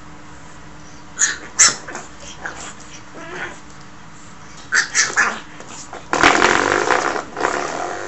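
Pug puppy giving a few short yaps, then a louder, longer growling bark about six seconds in.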